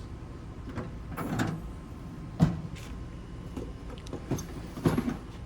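A metal tool chest being handled, with drawers sliding and clunking shut. There are a few scraping slides and knocks, and one sharp clack about two and a half seconds in.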